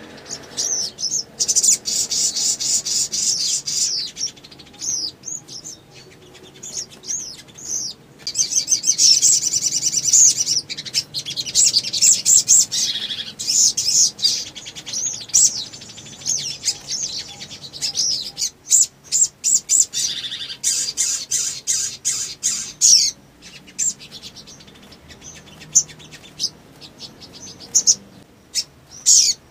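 Male sogon (sunbird) singing in long, rapid runs of high-pitched chirps and twitters, with short pauses between the runs.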